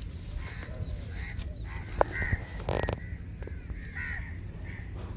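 Birds calling over and over in short calls, with a sharp click about two seconds in and a brief rustle just after.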